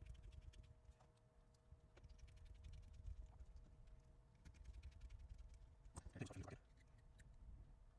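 Faint clicks and taps of small electronic parts being handled and a small screwdriver being used on the speaker's plastic housing and circuit board, with a short cluster of louder clicks about six seconds in. A faint steady hum lies underneath.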